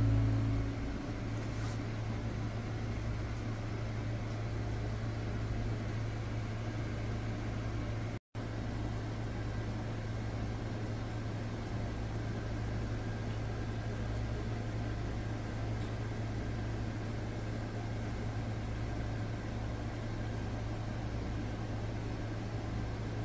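A steady low hum with a faint even hiss, dropping out for a split second about eight seconds in.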